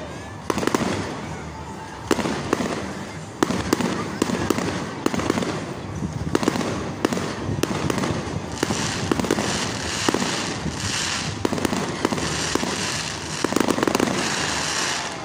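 Aerial fireworks display: shells bursting in repeated sharp bangs, about one every second or so. A crackling hiss joins from about eight seconds in.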